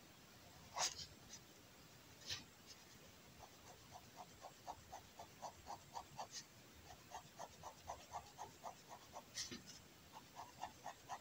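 Fineliner pen hatching on kraft paper: quick, even scratchy strokes, about five a second, with a few sharp taps, the loudest about a second in.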